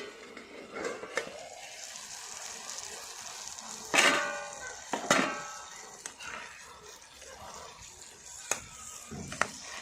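Food frying and sizzling in a pan while a metal spoon stirs and scrapes it. The spoon clanks against the pan several times, the loudest clanks coming about four and five seconds in.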